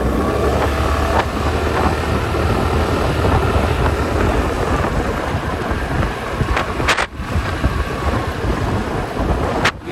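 Heavy wind buffeting on a helmet-mounted microphone from riding a Suzuki Avenis scooter, with the scooter's running engine underneath. The sound briefly cuts out twice, about seven seconds in and near the end.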